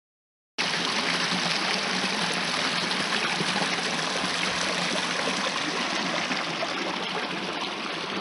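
Shallow rocky creek running over stones in small riffles and cascades: a steady rush of water that starts abruptly about half a second in.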